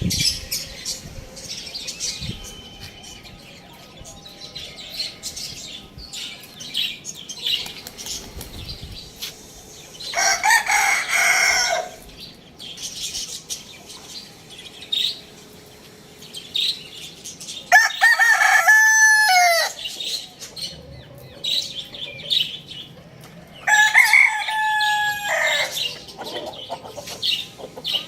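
A rooster crowing three times, each crow about two seconds long, with short clucks and chirps from chickens in between.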